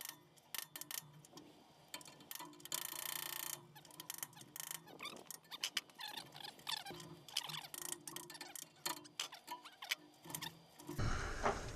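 Hand tools cutting and picking out the stub of a brass relief-valve thread left in a water heater's tapping: irregular metal clicks and short scrapes, with one longer rasping stroke about three seconds in.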